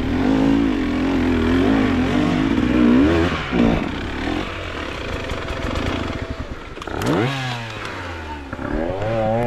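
Enduro motorcycle engine revving, its pitch rising and falling again and again. For a few seconds in the middle it turns rough and rattly at low revs, then it revs up sharply about seven seconds in.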